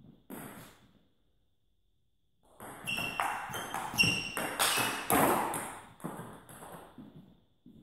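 Table tennis rally in a sports hall: a couple of ball taps, a short pause, then about four seconds of quick sharp clicks as the ball strikes the rackets and the table in turn, ending with a few light taps.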